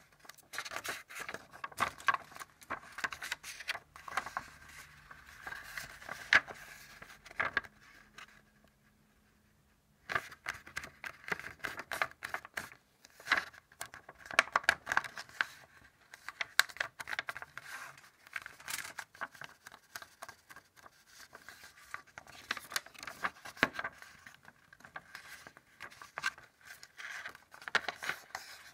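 A sheet of paper being handled and folded by hand: crinkling and rustling with sharp crisp snaps and scrapes as the folds are made and creased. There is a break of about two seconds of near silence about eight seconds in.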